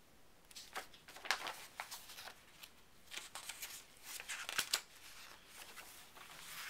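Handling of a hardcover picture book, its cover and pages rustling and crinkling as it is opened and turned, in a run of irregular scrapes and crackles that dies down after about five seconds.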